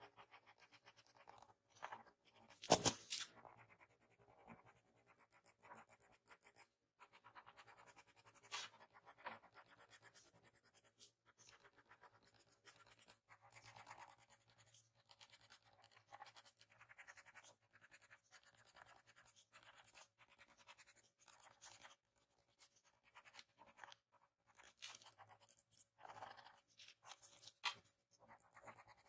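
Pencil graphite scratching on paper in quick, short strokes while shading hair strands, with one louder scuff about three seconds in.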